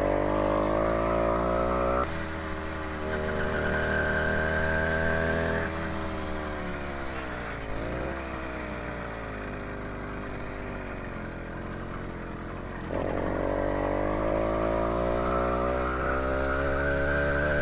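80cc four-stroke bicycle engine running under way. Its pitch climbs as it accelerates, holds high, sinks to a low point around the middle and stays low, then climbs again for the last few seconds. The sound changes abruptly about two seconds in and again near thirteen seconds.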